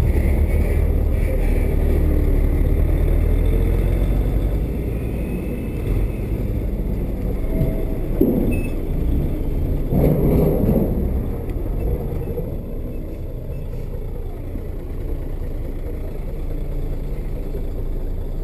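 Low rumble with wind noise on an action-camera microphone, loudest in the first few seconds beside a large truck and easing off later. Two brief louder patches come about eight and ten seconds in.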